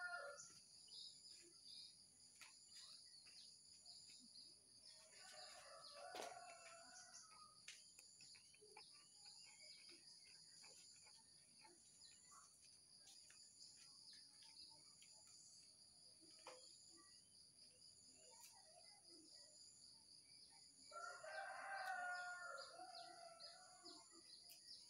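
Two long, drawn-out bird calls, one about a quarter of the way in and one near the end, over a steady high-pitched whine and faint scattered ticks.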